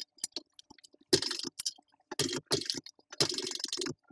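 TechSew 2750 Pro walking-foot sewing machine stitching a seam in short, stop-start runs, with clicking from the mechanism. The fabric is handled between runs.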